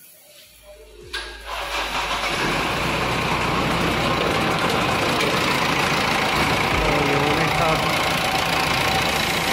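Mahindra Bolero pickup's diesel engine cranking and catching about a second in, then settling into a steady idle.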